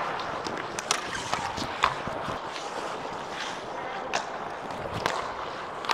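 Ice hockey play on the rink: a steady hiss of skates and arena noise, with sharp clacks of sticks, skates and puck on the ice every second or so.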